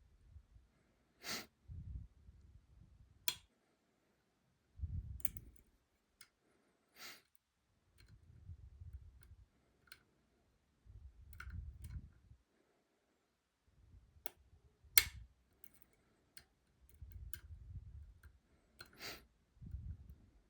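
Lock picking in a Robur 2391 pin-tumbler lock with a sidebar: about nine sharp, irregularly spaced clicks, with soft low handling rumbles between them.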